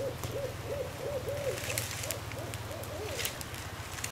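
Bonfire crackling with scattered pops, under a steady run of short hooting calls, about four a second.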